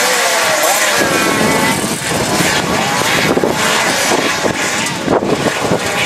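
A pack of gearbox racing karts on track, several two-stroke engines running at once with their pitches gliding up and down as they brake and accelerate through a corner. About a second in the sound turns fuller and rougher as the pack comes closer.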